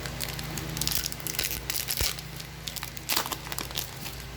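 Crinkling and rustling of a trading-card booster pack's foil wrapper and cards being handled, in irregular spells of crackle.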